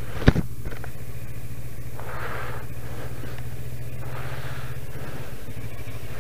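Kawasaki Versys 650 parallel-twin engine running steadily while riding on a snowy road. There is a sharp knock about a third of a second in, and swells of hiss about two and four seconds in.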